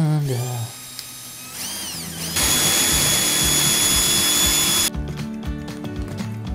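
Cordless drill boring a fixing hole through ceramic wall tile: the motor winds up briefly, then runs steadily at high speed for about two and a half seconds and stops. Background music with a beat follows.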